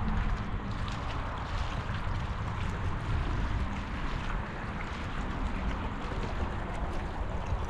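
Steady wind rumble buffeting the microphone, with small waves lapping and splashing against the rocky shoreline.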